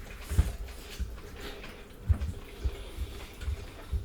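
Mukbang eating sounds: people chewing food, with several soft, short knocks and small clicks of dishes and cutlery.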